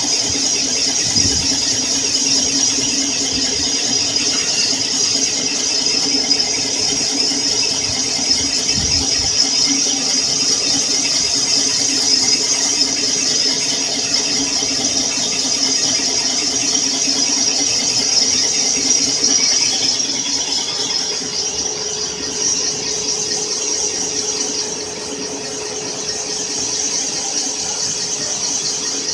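Boring bar of a cylinder boring machine cutting a cylinder bore in a cast-iron engine block, giving a steady high-pitched squeal over a lower machine hum. It eases a little near the end.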